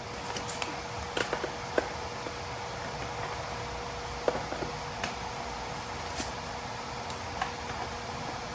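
Scattered light clicks and taps of hands and tools working at a car's front-seat mounting bolts, at uneven intervals and not a steady ratcheting. Under them is a steady hum with a faint constant tone.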